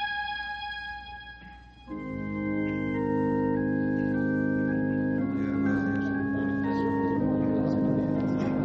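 Organ music bridge: a held organ chord dies away, then about two seconds in a new chord comes in and the organ moves slowly through several sustained chords.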